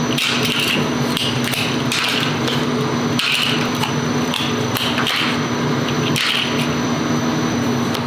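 Steady factory machinery hum with a few sharp clacks and short scrapes of metal binder clips being pulled off plastic molds and dropped onto a metal table.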